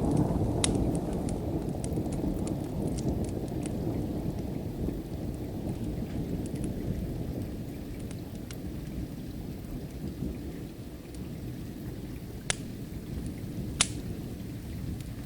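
Low rolling thunder rumble over steady rain, loudest at the start and slowly dying away. Sharp crackles and pops from a wood fire are scattered through it, with two louder pops near the end.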